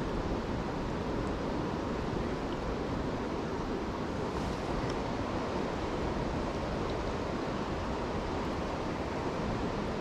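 Steady rushing of a flowing river, an even noise with no change.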